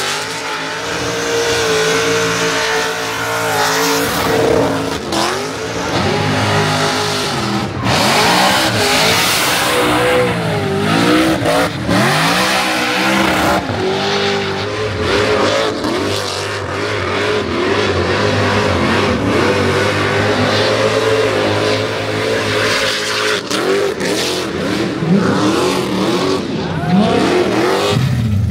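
Loud car engine revving through a burnout, its pitch swinging up and down over and over, with the drive tyres spinning against the tarmac.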